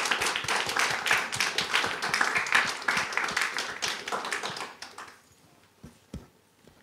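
Audience applauding, dying away about five seconds in, followed by a couple of faint low thumps near the end.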